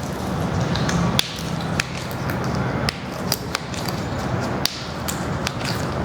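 Series of sharp cracks and clicks at irregular intervals, about eight of them, from joints being manipulated during a chiropractic adjustment, over a steady low hum.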